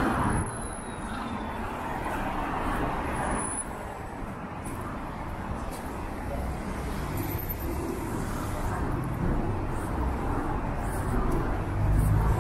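Busy city street ambience: road traffic running past, with a louder low engine rumble from a vehicle going by near the end.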